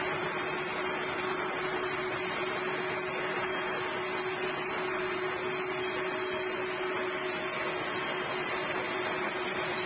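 Steel wire drawing machine running steadily, drawing wire and laying it into a coil with its take-up arm: a continuous mechanical whir with a steady hum under a broad hiss.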